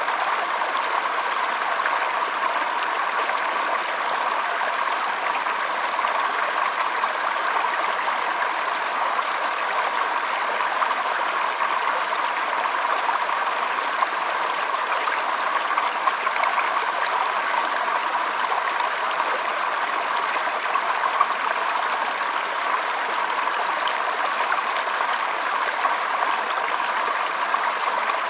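Flowing water: a steady, unbroken stream or brook running, with no other sound.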